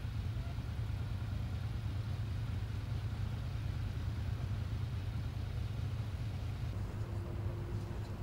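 Queued road traffic, cars and motorcycles, idling with a steady low engine rumble. Near the end the sound changes and a faint steady tone joins.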